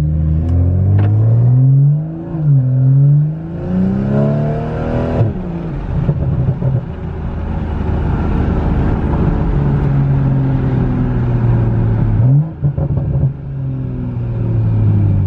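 BMW M340i's turbocharged 3.0-litre inline-six, straight-piped from the cat back with the muffler deleted, heard inside the cabin as the car accelerates. The engine note climbs, dips about two seconds in, climbs again until about five seconds in, then settles into a steady loud drone, with a brief dip and rise near the end.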